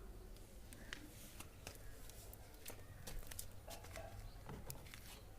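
Faint, irregular clicks and taps of hand tools on the washing machine's plastic cover as its screws are undone.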